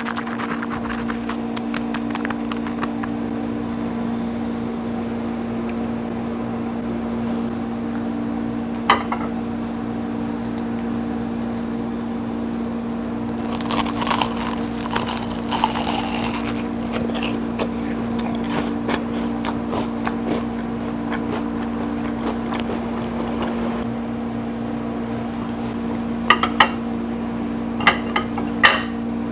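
Crispy deep-fried menbosha (shrimp toast in white bread) crackling as it is squeezed, then crunching loudly as it is bitten and chewed, with sharp crunches in the middle and near the end. A steady low electrical hum sounds throughout.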